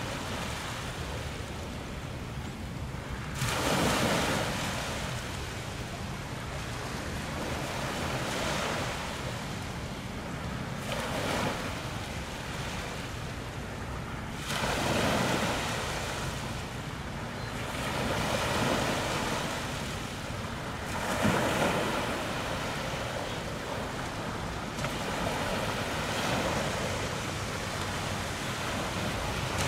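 Sea waves rushing and splashing, surging louder every few seconds, over a steady low rumble of wind on the microphone.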